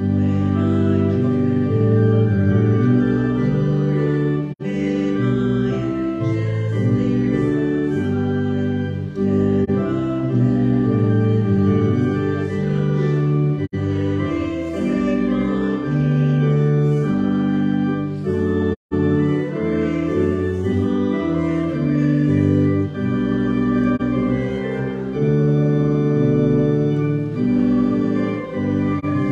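Church organ playing a hymn in slow, sustained chords, with a congregation singing along faintly. The sound cuts out for a split second about two-thirds of the way through.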